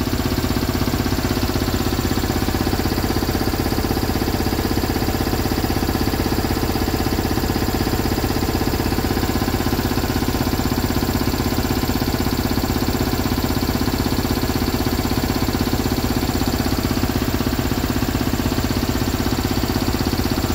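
An engine or motor running steadily, with a fast, even pulse that does not change.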